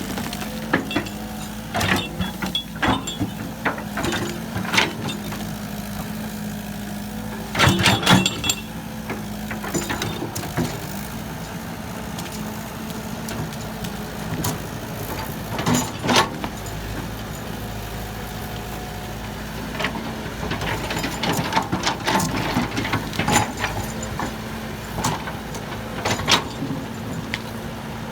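Heavy construction machine's diesel engine running steadily, with scattered metallic clanks and knocks over it, loudest in a short clatter about a third of the way in.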